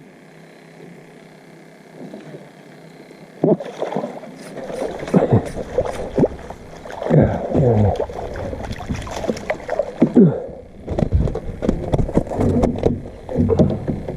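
Clatter and knocks in a small fishing boat, with some water sounds, starting about three and a half seconds in after a quiet stretch.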